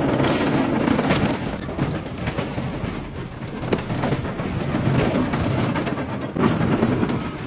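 Bulldozer running over a school bus: a heavy engine and track rumble with dense crunching, cracking and knocking of the bus body giving way under it. It is louder right at the start and again about six and a half seconds in.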